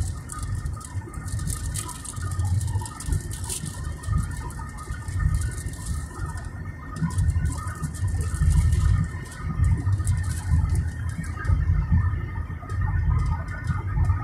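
Car driving along a highway heard from inside the cabin: a fluctuating low road and engine rumble with crackling wind buffeting on the phone's microphone. Faint short chirps are scattered through it.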